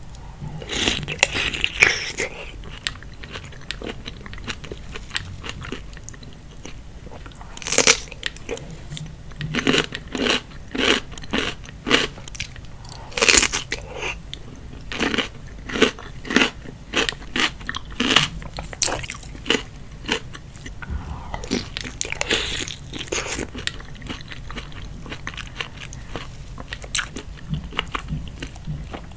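Close-miked ASMR eating of seafood boil: biting and chewing, with a run of sharp crunches and smacks that is densest through the middle, and a couple of longer, softer stretches near the start and about two-thirds through.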